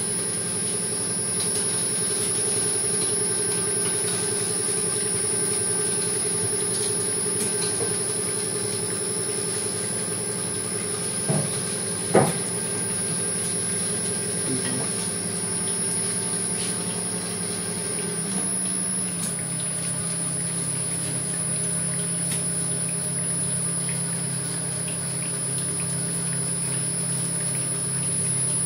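SPU 40 screw oil press running, its 2.2 kW electric motor and gear reducer driving the screw as it presses sunflower seeds. It makes a steady hum with a high whine over it. There are two sharp cracks a little before halfway, and the hum steps down slightly in pitch about two-thirds of the way through.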